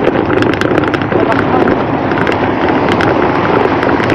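Loud, steady wind buffeting on the microphone of a bicycle-mounted camera, with many quick clicks and rattles as the bike rolls over rough, cracked asphalt.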